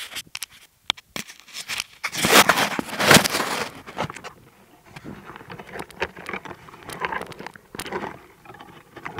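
Handling noise from a small iPod nano recorder being moved and set in place: irregular clicks, scrapes and crackles of the device rubbing against its microphone, with a louder stretch of rubbing about two to three and a half seconds in.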